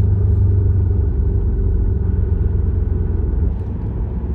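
Audi A4 1.8T with Multitronic CVT running: a steady low rumble with a faint, steady whine above it, the whining sound that is the subject of the recording.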